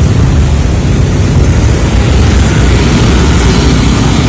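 Passing motor scooters and motorcycles on the road close by, a loud, steady drone of small engines and tyres.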